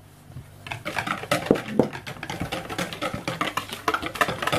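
Wire balloon whisk beating eggs in a plastic mixing bowl. It makes a rapid, steady clatter of wires scraping and tapping against the bowl, starting about a second in.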